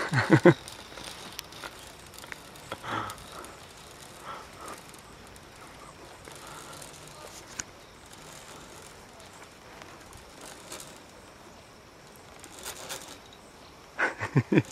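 A rope-course harness pulley rolling along a steel cable: a faint, steady rolling noise with a few light clicks and rattles.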